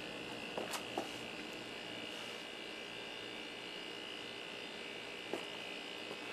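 Steady, faint electric hum of a refrigerator compressor pumping air into the air cannon's reservoir, with a few light clicks about a second in.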